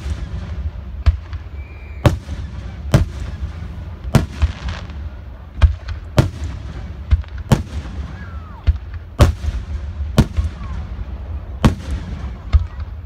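Aerial fireworks shells bursting overhead in quick succession: about a dozen sharp booms, roughly one a second, over a steady low rumble.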